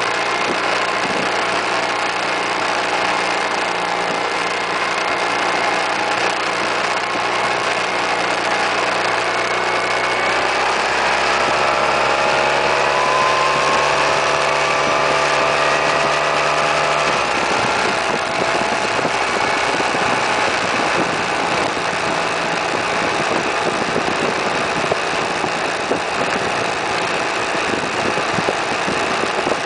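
Suzuki Burgman 650 scooter's parallel-twin engine running under way, its note climbing steadily for several seconds as the scooter accelerates. A little past halfway the engine note gives way abruptly to a steady rush of wind and road noise over the microphone.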